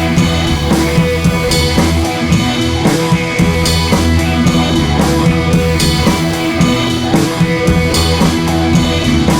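Background music: a rock-style track with drum kit and guitar and a steady beat.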